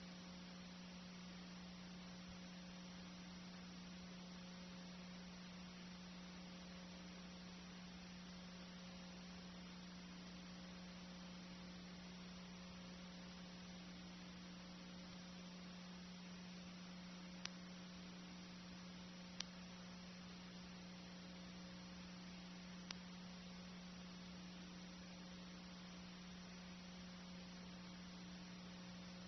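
Near silence: a faint steady electrical hum under an even hiss, with three tiny clicks in the second half.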